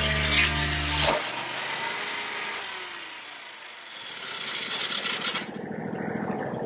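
Portable band sawmill running through a log, with machine noise and a faint falling tone. The sound drops away about five seconds in.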